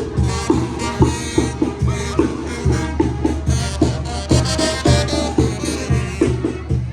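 Music with a steady drum beat and other instruments.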